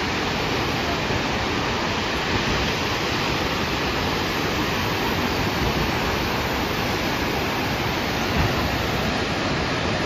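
Steady rushing noise of the Salto São Francisco, a waterfall of about 196 m, falling into its gorge.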